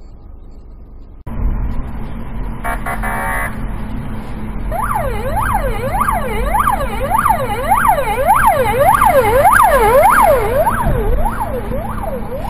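Traffic-police car siren wailing fast, its pitch sweeping up and down about twice a second. It comes in about five seconds in, grows louder, then eases a little near the end, over steady engine and road rumble heard from inside a car.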